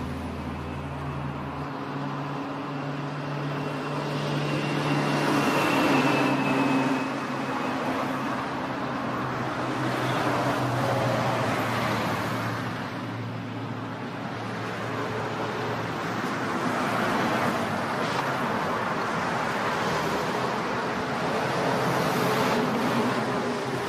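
Road traffic: cars and vans passing in several swells of tyre and engine noise over a steady hum.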